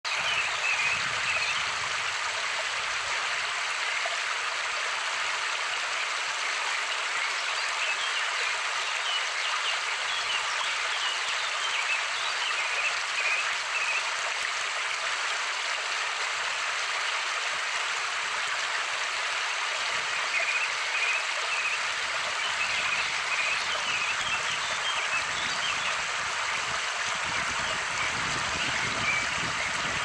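Steady rush of running water, like a stream. Faint short high notes are scattered over it now and then.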